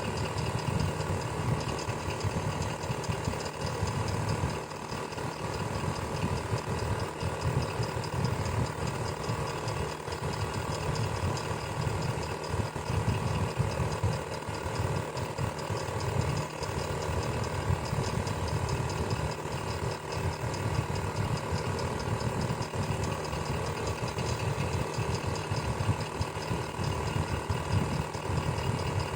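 Electric fan running steadily: a constant motor hum with a fast, uneven low whir beneath it.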